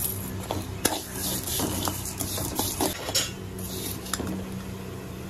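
A metal spoon scraping and clinking against a metal pan as seeds are stirred while dry-roasting, with irregular clicks and patches of gritty hiss as the seeds slide across the pan.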